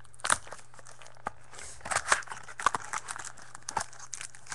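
Clear plastic wrap being torn and crinkled off a football trading card pack by hand: irregular crackling that comes in several bunches.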